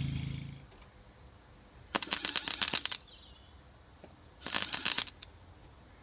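Electric arc welding crackling in two short bursts of about a second each, two seconds and four and a half seconds in. A low buzz fades out in the first half second.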